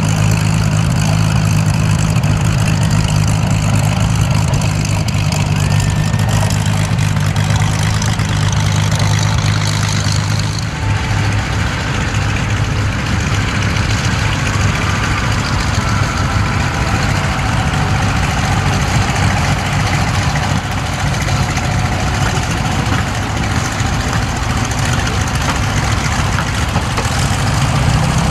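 Piston aircraft engine running, a steady low drone that changes about ten seconds in and gives way to a noisier sound with higher, drawn-out tones.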